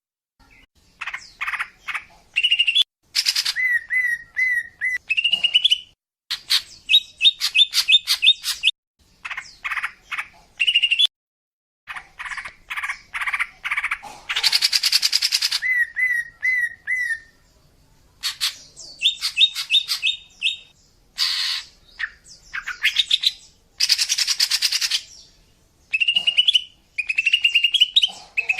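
Female green leafbird (cucak ijo) calling: groups of quick chirps and short whistled notes, broken by a few harsh chattering bursts. This is the call used to lure male cucak ijo.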